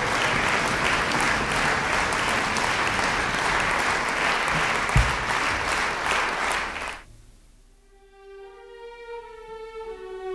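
Concert audience applauding, the clapping dying away about seven seconds in. After a brief hush, the orchestra's strings enter softly with long held notes.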